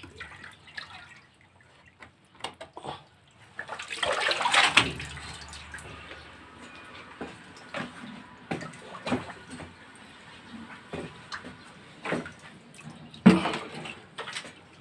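Water splashing and dripping amid irregular knocks and scrapes, with a louder burst of noise about four seconds in and a sharp knock near the end.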